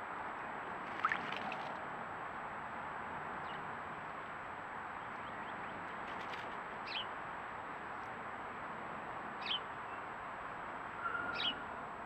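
Brief high chirps of small songbirds over a steady outdoor background: one rising chirp about a second in, then single short falling notes every two to three seconds.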